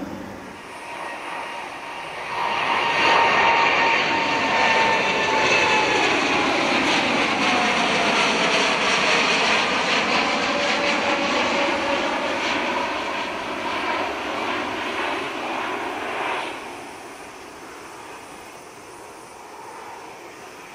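Boeing 787-9's twin turbofan engines at climb power as the jet passes overhead just after takeoff. The sound swells about two seconds in, with whining tones that slide down in pitch as the aircraft goes by, then drops sharply to a faint rumble for the last few seconds.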